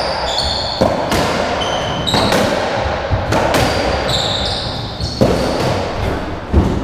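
Racketball ball being struck by rackets and hitting the court walls, about six sharp hits a second or so apart, each echoing in the enclosed squash court, with short squeaks of trainers on the wooden floor in between.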